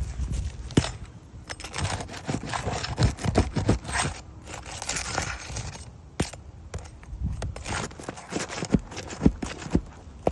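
Irregular scraping, taps and footfalls on asphalt roof shingles, with a denser rasping scrape about four to five seconds in.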